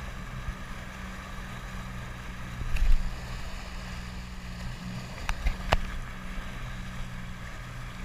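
Small open motorboat under way, its 30 hp outboard motor running steadily under a hiss of wind on the microphone. A loud low thump about three seconds in, and three sharp knocks in quick succession a little after five seconds.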